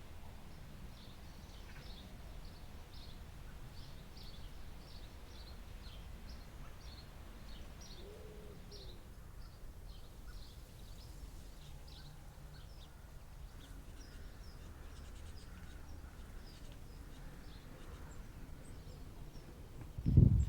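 Wild birds chirping in short repeated notes over a steady low outdoor rumble, with a single low hooting call about eight seconds in. Near the end a sudden loud thump cuts in.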